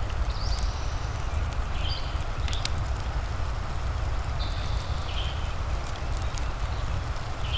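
Fireplace crackling, with sharp scattered pops over a steady hiss and low rumble of rain and fire. Short high chirps recur every second or two.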